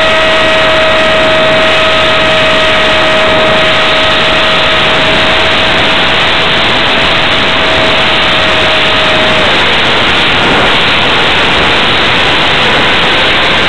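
Electric motor and pusher propeller of an F-27C Stryker RC flying wing in flight, a steady whine under heavy wind rush on the microphone. The whine drops lower about nine and a half seconds in and rises back near the end.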